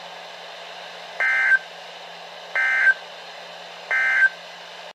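NOAA Weather Radio Emergency Alert System end-of-message tones: three short, identical warbling digital data bursts about a second and a half apart. They signal that the warning message is over. A steady faint hum and hiss from the radio lies underneath.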